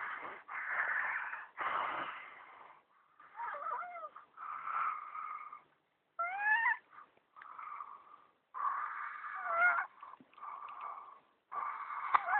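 Snoring with high, squeaky whistling notes that rise and fall on the breaths, repeating about every second or so with short pauses between.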